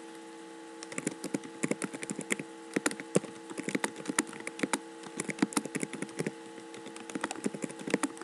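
Typing on a computer keyboard: a rapid, irregular run of key clicks starting about a second in, over a steady low electrical hum.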